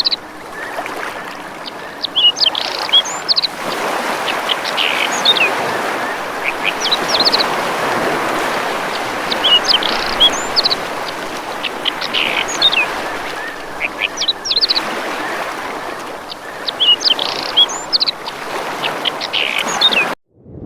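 Birds calling in short clusters of high chirps and whistles, repeated every two seconds or so, over a steady rush of water. The sound cuts out just before the end.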